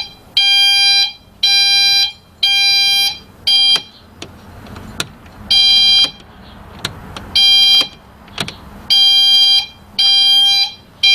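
Truck backup (reverse) beeper sounding a loud, high-pitched beep about once a second, wired into the reverse-light circuit and being tested. The beeping breaks off for about a second and a half near the middle, then resumes.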